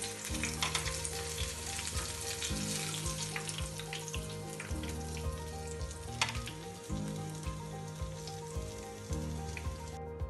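Hot cooking oil sizzling and crackling in a frying pan where flour-battered chicken has been frying, with scattered sharp pops. Background music with a low repeating bass line runs underneath, and the sizzling cuts off near the end.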